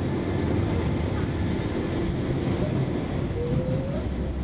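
Gothenburg M31 tram running along the track, heard from inside the car: a steady low rumble, with a brief rising squeal near the end.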